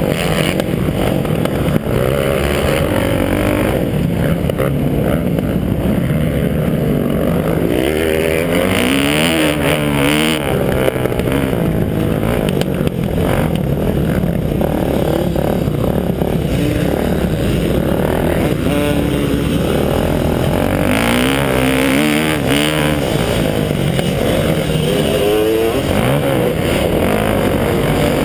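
Kawasaki KX450F's single-cylinder four-stroke engine running hard under racing load, its pitch rising and falling again and again as the throttle is worked, heard from the rider's helmet-mounted camera.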